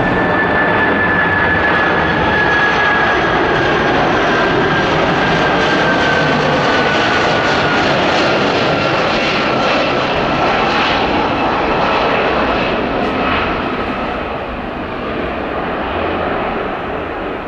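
Boeing 747-400F freighter on final approach with gear down: its four jet engines give a loud, steady rush of noise. Over it runs a thin high whine that slowly drops in pitch, and the sound eases off a little near the end.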